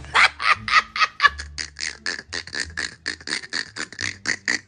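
Small dog yapping rapidly, about five short, high yaps a second with no break.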